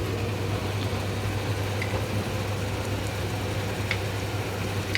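Steady low mechanical hum, with a few faint light clicks about two, four and five seconds in.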